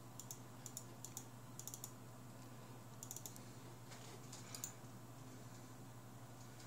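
Faint clicking at a computer, keys or mouse buttons pressed in small clusters every second or so, over a steady low hum.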